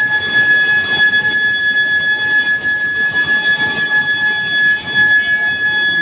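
IGBT billet induction heating furnace in operation: the induction coils give a steady high-pitched whine with fainter overtones, over a continuous rumble and hiss of the heating line.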